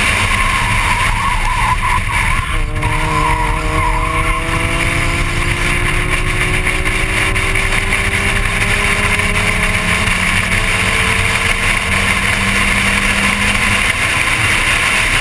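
Inside a Volkswagen Golf Mk1 race car with a 1.8-litre four-cylinder engine, over heavy wind and road noise. Tyres squeal through a corner for the first few seconds. After a gear change about two and a half seconds in, the engine note climbs slowly as the car accelerates in the higher gear.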